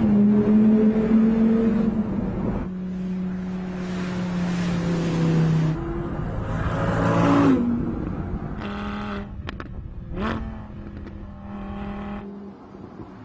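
Audi R8 Spyder's 5.2-litre V10 engine running and revving. The pitch holds steady for the first few seconds, then climbs, followed by several short revs in the second half as the sound eases.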